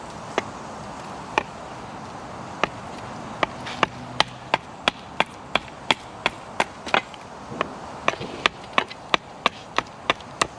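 Hatchet chopping down along an upright seasoned hazel bow stave on a log block: sharp wooden knocks, a few spaced strokes at first, then about three strokes a second from about three seconds in.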